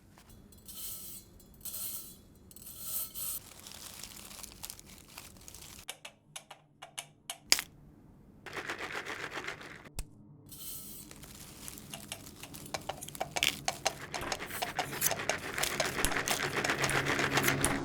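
Crackling, rustling noises: three short hissy bursts at the start, a run of sharp clicks around the middle, then dense crackling that grows louder toward the end.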